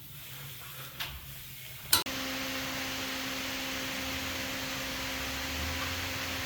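A sharp click about two seconds in, then a steady mechanical hum with a hiss that starts suddenly and holds even.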